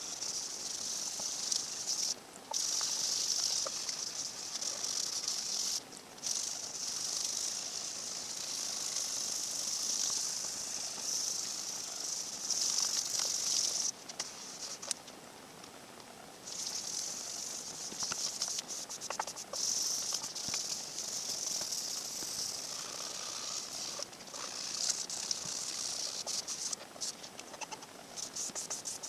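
Wet sanding of a guitar body's finish with 1000-grit sandpaper on a block and water: a steady scratchy hiss of the paper stroking over the surface, stopping briefly a few times, with a longer pause about halfway through.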